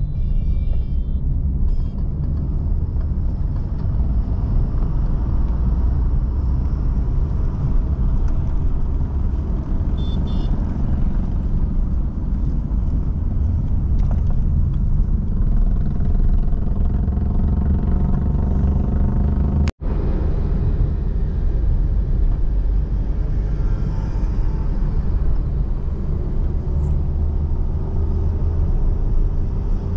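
Steady low road and engine rumble of a moving car. It cuts out for an instant about two-thirds of the way through.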